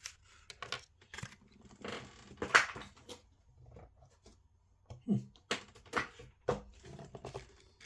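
Hands handling a plastic action figure and its packaging: scattered clicks and taps with a rustle about two and a half seconds in, and a few sharper knocks near the end.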